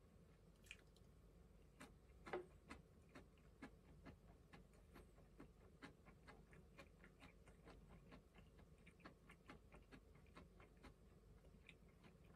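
Quiet eating sounds: faint, irregular clicks of chewing, about two to four a second, with one louder tap about two seconds in.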